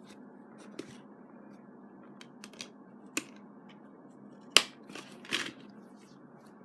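Scattered sharp plastic clicks and light handling noise as a disc is put back into its plastic case. The loudest click comes a little over four and a half seconds in.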